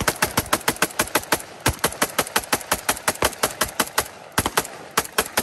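Rifle firing a rapid string of shots, about six a second, with a brief pause about one and a half seconds in.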